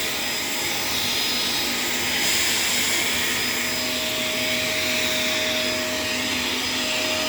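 Shark LA702 Lift-Away upright vacuum cleaner running steadily, a continuous motor rush with a thin high whine; a further hum tone joins about three and a half seconds in.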